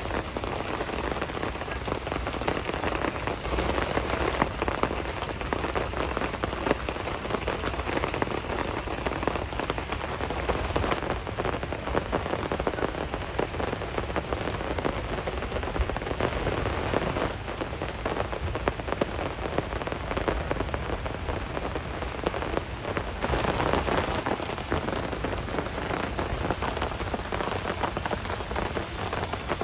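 Heavy rain pouring down steadily, a dense even patter of raindrops.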